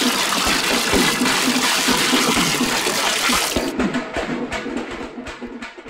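A stream of water pouring and splashing into a large aluminium pot of chicken biryani masala, adding the water for the rice to cook in. The rush of water suddenly quietens about two-thirds of the way through, over background music with a beat.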